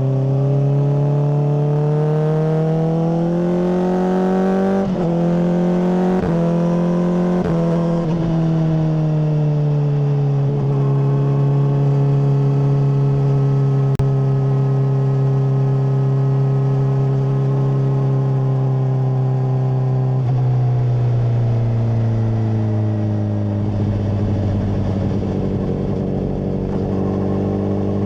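Honda CBR600RR inline-four through a MIVV full exhaust, ridden hard: the engine note climbs with three quick gear changes, then sinks slowly as the rider eases off. Past the two-thirds mark it drops again and settles low and steady.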